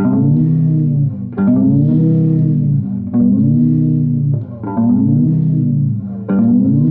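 Bass guitar played solo: a plucked note about every second and a half, each ringing out while its pitch is bent up and back down.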